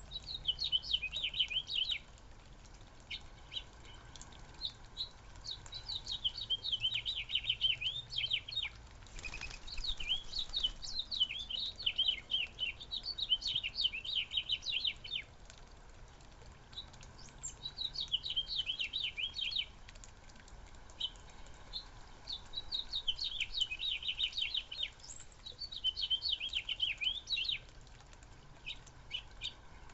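A flock of small backyard birds chirping in bursts of rapid, overlapping high chirps, with quieter gaps between bouts. A brief rustle about nine seconds in.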